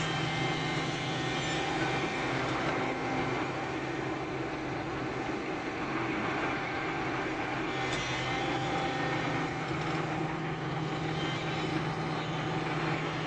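SANY SY365H Pro excavator's diesel engine running steadily, a constant low hum with mechanical noise over it.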